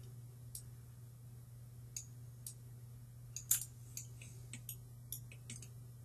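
Faint, irregular clicks of a computer mouse, about a dozen scattered through, the loudest a pair about three and a half seconds in, over a steady low hum.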